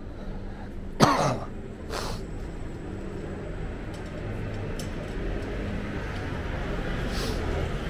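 A person coughs sharply about a second in and again, more weakly, a second later, over a steady low background rumble.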